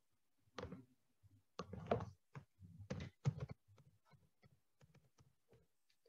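Quiet, irregular clicks and taps of typing on a computer keyboard, with a few mouse clicks; the first taps are the loudest and the last ones, near the end, are faint.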